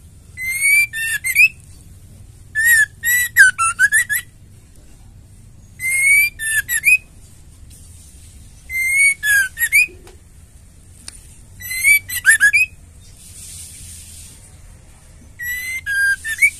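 White-rumped shama singing: six short phrases about three seconds apart, each a quick run of clear whistled notes gliding up and down.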